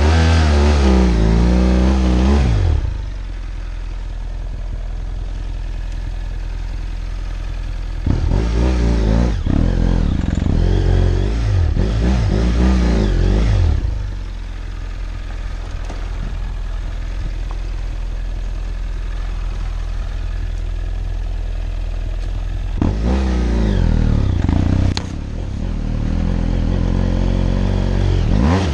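BMW F700GS parallel-twin engine pulling up a steep dirt trail, revving hard in three stretches (near the start, in the middle and near the end) and running lower and steadier between them.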